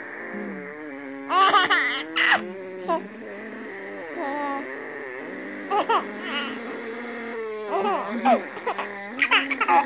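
A baby laughing in bursts, about a second in, around the middle and again near the end, while a person makes a long drawn-out vocal noise to amuse her.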